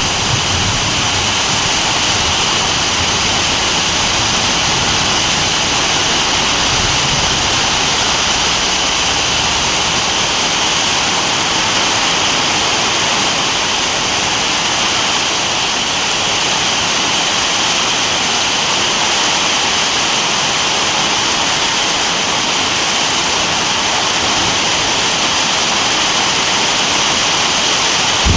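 Heavy rain falling steadily in a dense, even hiss. A low rumble underneath fades out within the first several seconds.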